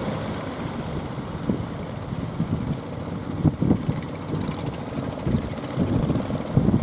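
Fishing boat engines running under strong wind buffeting the microphone, with irregular gusts and the wash of waves.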